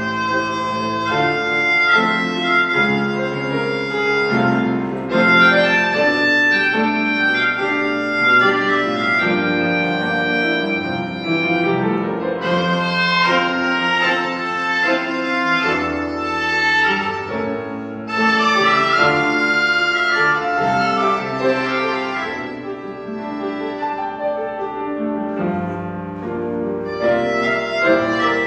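Live piano and accordion duet: the accordion holds long melody notes over the piano accompaniment.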